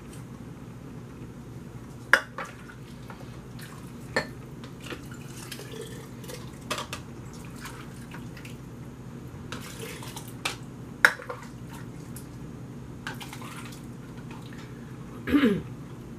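Soup scooped from a slow cooker and poured through a plastic canning funnel into glass jars: scattered clinks and knocks of the plastic scoop, funnel and glass jars, with short splashes of liquid pouring. Near the end comes a brief squeak that falls in pitch.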